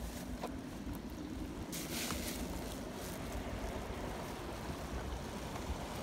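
Steady rushing and bubbling of a creek, with wind rumbling on the microphone. A brief rustle comes about two seconds in.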